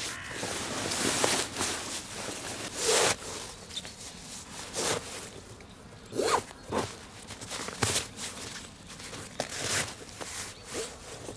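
A sleeping bag's slick fabric shell being stuffed by hand into a nylon stuff sack: a string of irregular rustling swishes of fabric rubbing on fabric.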